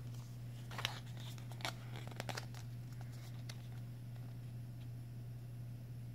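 Stiff business cards being handled: a few sharp clicks and papery rustles as fingers pick up and shift the cards, bunched in the first few seconds, over a steady low hum.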